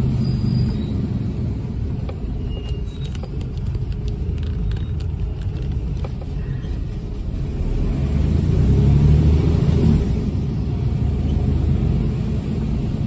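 HGV diesel engine running at low road speed, a deep rumble that grows louder about eight seconds in and eases off again about two seconds later. A few faint ticks come in between about three and five seconds in.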